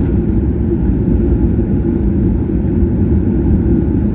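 Steady airliner cabin noise heard from inside the passenger cabin: a deep, even rumble of the engines and airflow, with no distinct changes.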